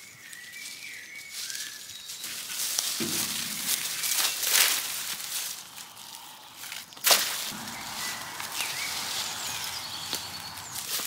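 Rustling and scraping noises of outdoor yard work, with a sharp knock about seven seconds in.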